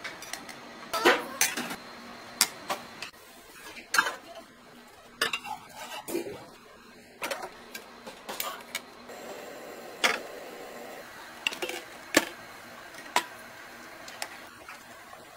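Kitchen clatter: metal utensils clacking against steel bowls and a pan in sharp, separate knocks at irregular intervals, roughly one a second, over a steady background hum.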